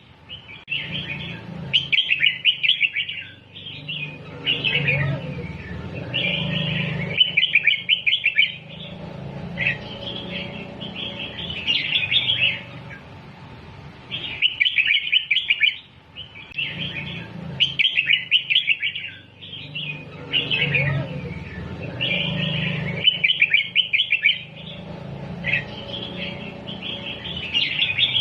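Red-whiskered bulbul song: short phrases of quick, bubbly notes with brief pauses between, the same run of phrases coming round again about halfway through, as in a looped tutor recording for teaching young bulbuls to sing. A low steady hum runs underneath.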